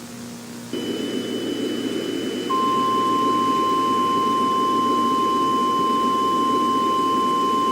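Emergency Alert System attention signal: a steady low static hum with a faint high whistle comes in under a second in, then about two and a half seconds in a single steady alert tone sounds for about five seconds.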